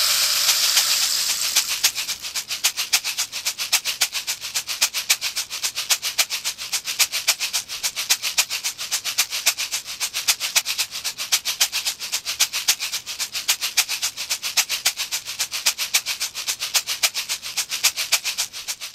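Soundtrack rhythm of a fast, even shaker-like rattle, about five strokes a second, following a hissing wash that fades out over the first two seconds.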